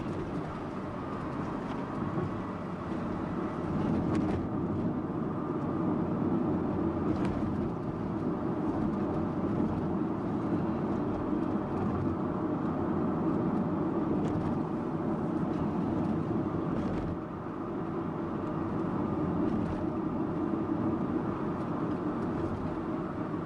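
Subaru Impreza Sports Wagon's flat-four engine and tyre and road noise while driving at a steady pace, a continuous low rumble that swells and eases slightly.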